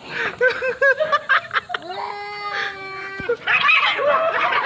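Animal calls: a quick run of short calls, then one long, steady call held for over a second that cuts off abruptly, then a harsher, noisier burst near the end.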